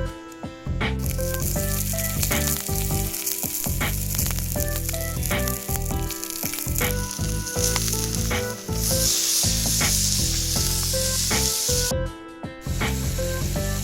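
Food sizzling in a hot pan, a steady hiss that breaks off briefly near the end, over background music.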